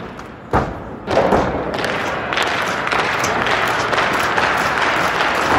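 A wrestler's body slamming onto the canvas of a wrestling ring: two loud thuds, about half a second and a second in, followed by steady crowd noise.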